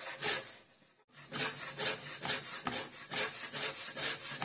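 Chef's knife chopping raw tuna into small cubes on a cutting board: regular knocks of the blade through the fish onto the board, about two a second, with a short pause about a second in.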